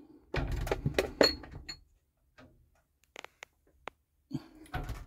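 Handling noise of a plastic shaving soap tub being put back on a shelf: rubbing and knocks in a short burst, then a few sharp clicks, then another brief knock and rustle near the end.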